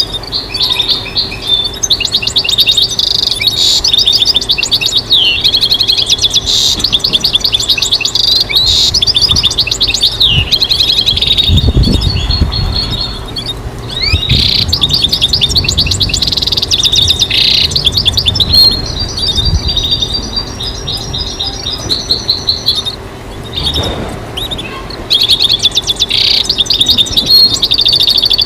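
European goldfinch singing: fast, liquid twittering trills and chattering phrases that run almost without a break, pausing briefly twice. A faint steady hum sits underneath.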